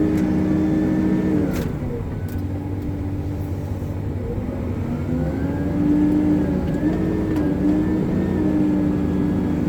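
Hitachi 370 wheel loader's diesel engine working under load in the mud. It eases off about a second and a half in and revs back up around six seconds, with a thin whine rising and falling with the revs.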